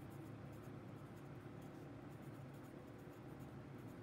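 Graphite pencil writing on a paper worksheet: faint, irregular scratching strokes as words are written out, over a faint steady low hum.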